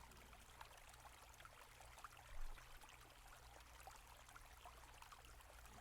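Near silence: a faint trickling-stream background over a low steady hum, with one brief, slightly louder sound about two and a half seconds in.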